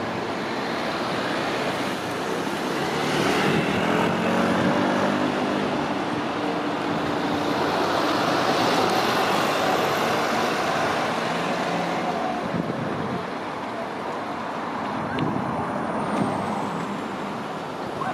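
Street traffic: passing motor vehicles over a steady hum of road noise, swelling as cars go by, the loudest pass about three to five seconds in.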